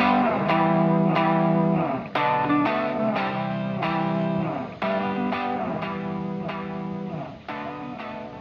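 Background music: a plucked guitar playing melodic phrases that each start strongly and die away, the whole growing quieter toward the end.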